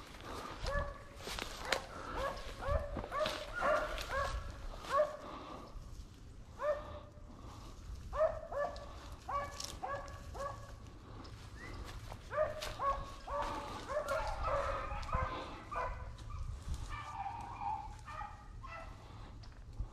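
Rabbit-hunting dogs barking in a long run of short barks, about two a second, with a couple of brief breaks. Near the end a second, higher-pitched bark joins in.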